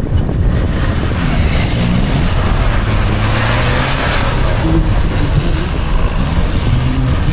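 Off-road 4x4's engine revving up and down under load as it climbs a steep dirt mound, with a rush of noise about three seconds in.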